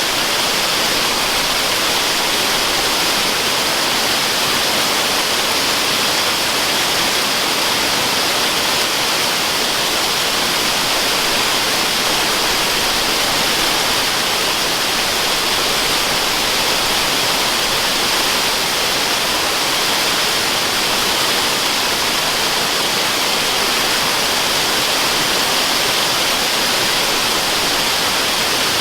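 Waterfall water rushing in a steady, unbroken hiss, used as white noise for sleep; brighter in the highs than in the bass, with no change throughout.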